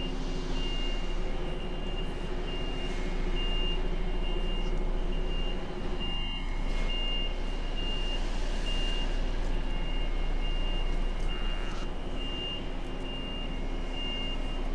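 Reversing alarm beeping at a steady rate, over the steady running of an idling truck diesel engine.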